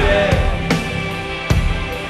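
Live rock band playing, with sharp drum hits about two-thirds of a second and a second and a half in.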